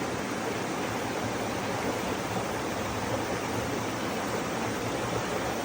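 Water of a rushing mountain stream, a steady even wash of noise.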